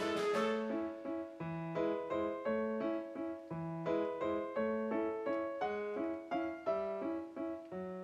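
Background piano music: a light, steady melody of short notes over a recurring bass line.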